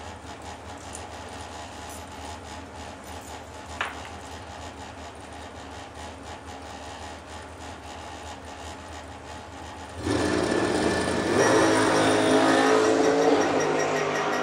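Dragster engine idling low at the start line, then about ten seconds in it launches: a sudden, much louder blast of engine noise at full throttle that holds as the car runs down the strip.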